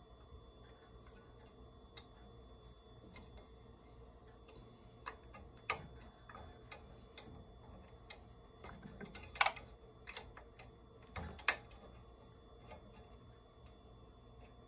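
Scattered small clicks and taps of hands working the screws and metal parts of an embroidery machine's cap driver, with a few sharper clicks past the middle.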